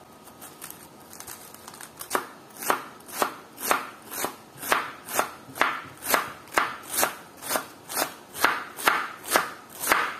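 Knife chopping on a cutting board in a steady rhythm of about two strokes a second, starting about two seconds in after a few faint ticks.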